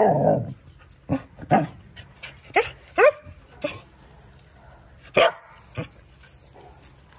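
Dogs barking and yipping in short, sharp, separate barks, each quickly dropping in pitch, with a louder burst at the start and quiet gaps between.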